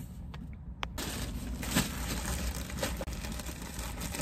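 A few sharp clicks. Then, from about a second in, continuous rustling and crinkling handling noise with scattered small clicks.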